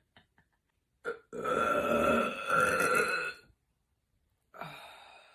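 A woman's long, loud belch lasting about two seconds, with a short sound just before it and a fainter one fading out near the end.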